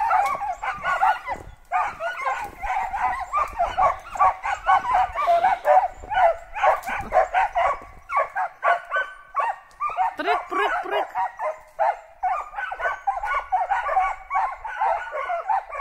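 Several hunting dogs barking rapidly and without pause, baying at a squirrel up in the trees.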